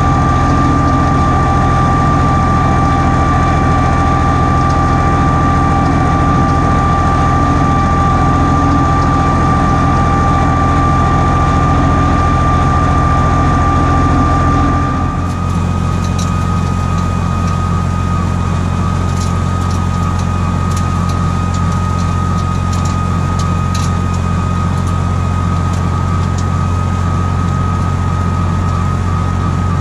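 Allis Chalmers 5050 tractor's three-cylinder diesel running steadily while driving a 6-foot Woods Brushbull rotary cutter, with a steady high whine over the engine. About halfway through the sound shifts abruptly, the whine rising slightly, and scattered sharp ticks follow.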